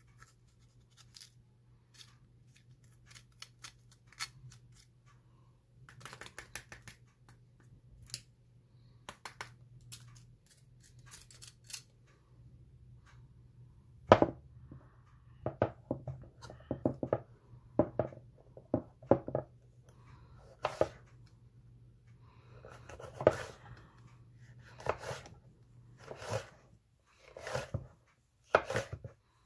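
Bell pepper being pulled apart and cleaned by hand, with faint crackling of the flesh. From about halfway, a kitchen knife slices it into strips on a wooden cutting board, with a sharper knock every second or so.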